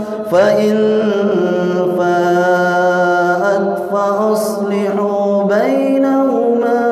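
A man reciting the Quran in a melodic chant, drawing the words out into long held notes that slide from one pitch to the next, with short breaks about a third of a second in and near four seconds in.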